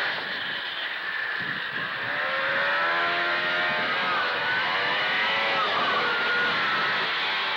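Arctic Cat Panther snowmobile's two-stroke engine running close by, its pitch rising and falling several times as the rider works the throttle.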